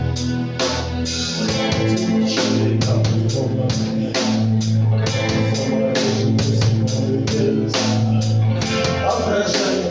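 A live rock band playing an instrumental passage: guitar, bass and drum kit with a steady beat.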